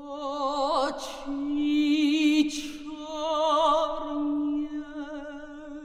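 A single singer holding long, slow notes with wide vibrato in an operatic style, unaccompanied. There are two short breaks between phrases.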